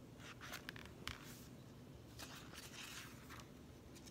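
Faint paper rustling and scraping as a picture book's pages are handled and turned, in several short strokes.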